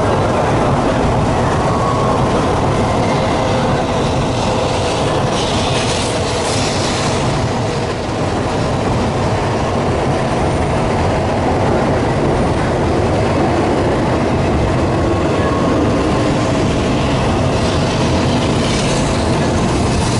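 N700 series Shinkansen train rolling in alongside the platform as it arrives at the station, a steady loud rumble and rush of wheels and running gear with a faint steady tone beneath it.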